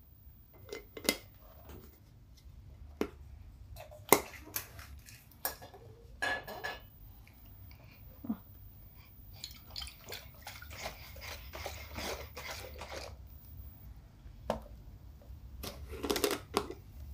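Plastic screw lid clicking and grating onto a glass jar of water and oil, with sharp knocks as the jar is handled on the table. From about nine to thirteen seconds in comes a dense run of sloshing and rattling as the jar is shaken, and more knocks near the end.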